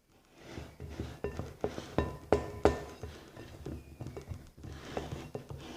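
A spoon stirring thick glue slime in a bowl, knocking and clacking against the bowl's side several times a second in an uneven rhythm, some knocks ringing briefly; the slime is close to activated.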